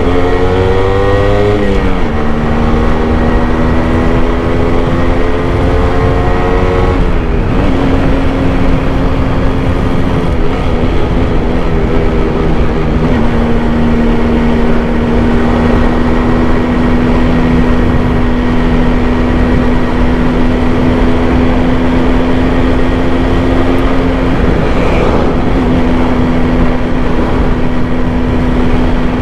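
Yamaha RX100's single-cylinder two-stroke engine under way: the revs climb for the first several seconds, drop sharply at a gear change, then hold steady while cruising, with a few brief dips in engine speed.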